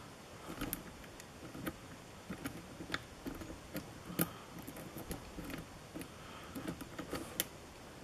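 Lock picking: a hook pick working the pins of a brass pin-tumbler lock under a tension tool, heard as faint, irregular small clicks and scrapes. The lock is held in a false set with counter-rotation, the feedback of spool pins.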